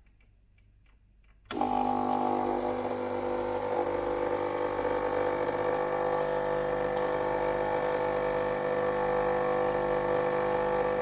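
Gaggia Viva Deluxe espresso machine's vibratory pump switching on about a second and a half in and running with a steady buzzing hum as the first espresso shot is pulled.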